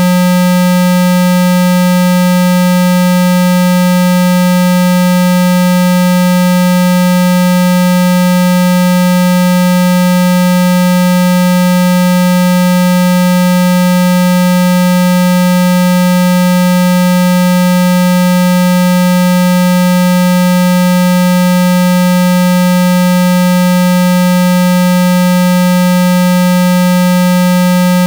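Synthesized 195 Hz water-eject tone: a single steady, loud low buzzing note held without change, played through a phone speaker to shake trapped water out of it.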